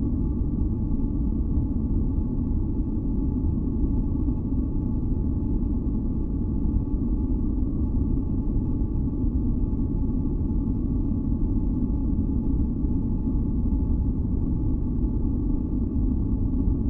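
Steady, deep, rumbling masking noise for sleep, heavy in the low end rather than evenly hissing, with faint steady tones humming above it. It holds unchanged throughout.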